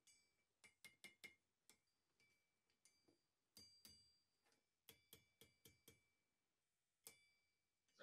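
Near silence, with a string of very faint, irregular hammer blows on hot iron over a blacksmith's anvil, each with a brief metallic ring, as a wrought-iron lock bolt is bent over the anvil horn.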